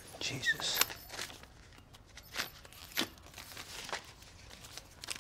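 Paper banknotes being handled and peeled off a wad: a handful of short, crisp rustles and snaps spaced through the moment.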